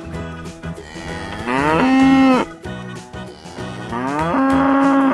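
Domestic cow mooing twice, each moo a long call that rises in pitch and then holds steady.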